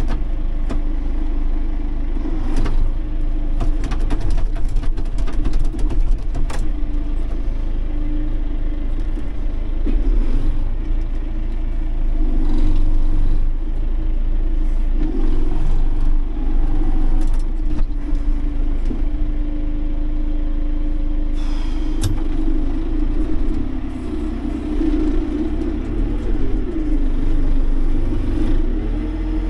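John Deere tractor engine running steadily, heard from inside the cab while the front loader works, its pitch rising and falling a little under load. Scattered knocks and clatter come early on, and there is one sharp click about three-quarters of the way through.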